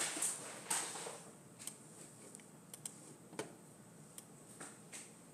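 Faint, sharp clicks of a computer mouse and keyboard, about ten of them spread unevenly, over a low steady room hiss.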